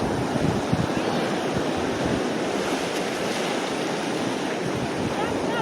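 Surf washing onto a beach, with wind buffeting the microphone in a steady low rumble.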